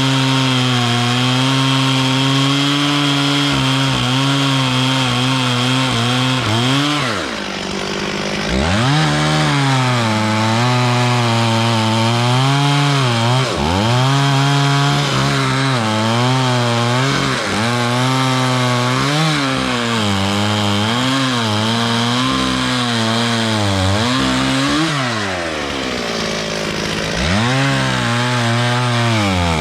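Stihl 440 two-stroke chainsaw running hard while sawing wood. The engine pitch repeatedly sags and recovers as the chain loads up in the cut, drops off sharply about seven seconds in, then comes back up, and sags again near the end.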